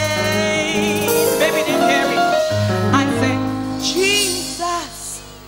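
A female gospel singer with live piano accompaniment: sustained piano chords under short sung phrases, the music getting quieter near the end.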